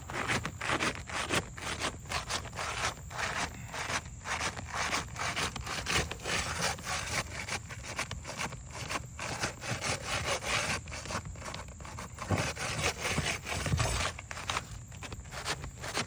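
Rapid, repeated back-and-forth scraping against an asphalt roof shingle as a stuck shingle is worked free, about three strokes a second.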